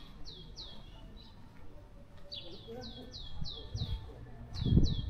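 A small bird calling in short runs of high notes, each sweeping down in pitch, about four a second, with pauses between the runs. A louder low rumble comes in near the end.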